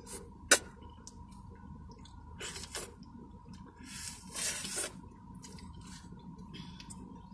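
Mouth sounds of eating thick milkshake off a plastic spoon-straw: a sharp click about half a second in, then wet smacking and slurping bursts, the longest near the middle.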